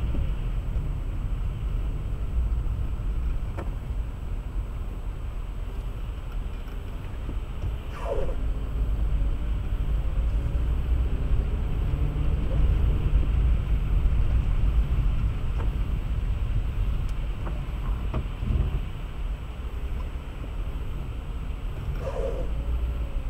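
A car driving on the road, with a steady low rumble of engine and tyres. Two short falling squeaks come about eight seconds in and near the end.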